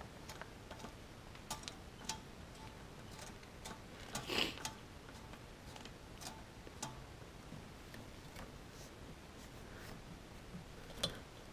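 Light, irregular clicks and taps from a throttle cable and small fittings being handled and seated at a dirt bike's carburetor, with one short breathy noise about four seconds in.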